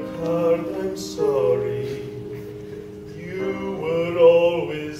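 A man singing over instrumental accompaniment, in three phrases with held notes.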